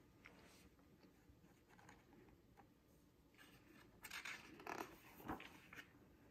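Near silence, then a soft rustle of paper from about halfway through as a picture book's page is turned over by hand.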